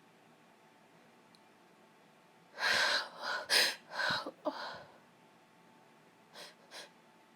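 A sick woman sneezing, a quick run of several sneezes and sharp breaths about two and a half seconds in. Two short, faint breaths follow near the end.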